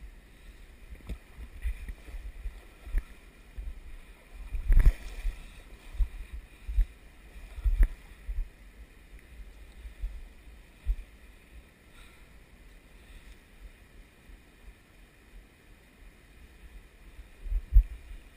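Shallow river water running over rocks, with irregular low thumps and knocks on the microphone; one sharper knock comes about five seconds in and a strong thump near the end.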